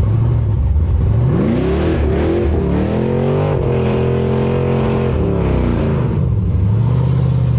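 Car engine revving up, held at high revs for about two seconds, then dropping back to a steady lower speed near the end.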